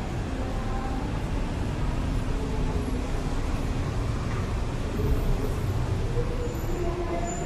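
Steady low rumble of city road traffic, vehicles passing without a break.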